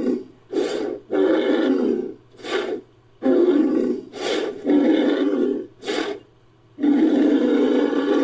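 Designed creature sound effect for Borissiakia, an extinct chalicothere, layered from bull, camel and chalicothere recordings. It is a run of about eight hoarse, noisy roar-like calls, some short and some over a second long, with brief pauses between them. The longest call comes near the end.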